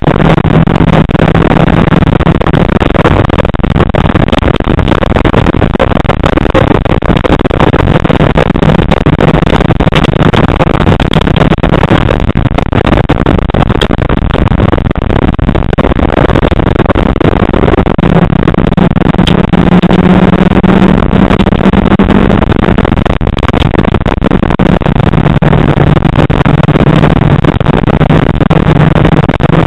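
Rally car engine heard from inside the cabin while driving a stage, loud and continuous over road and tyre noise. The engine note holds steady for long stretches, climbs for a few seconds past the middle, then drops back.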